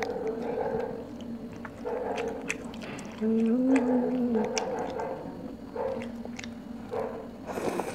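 Close-up chewing of squid and enoki mushrooms, with wet smacking and clicking mouth sounds throughout. Several short low hums rise and fall between bites, the longest about halfway through.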